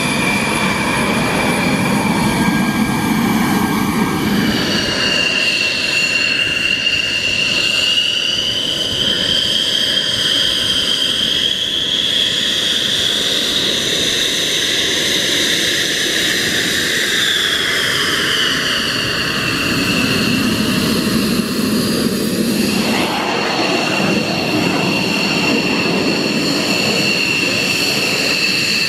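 Fighter jets taxiing past at low power, a Dassault Rafale and then F-16s. Their jet engines give a steady roar under a high whine that glides up and down and shifts abruptly twice.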